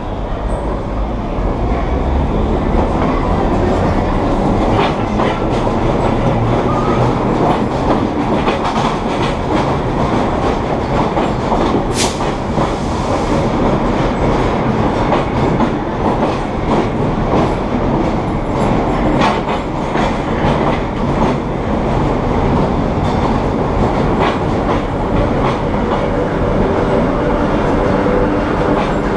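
1930s R1/9 subway cars running on the line, with the growl of their straight-cut traction gears under continuous running noise. The wheels clack repeatedly over rail joints, and there is one sharp click about twelve seconds in.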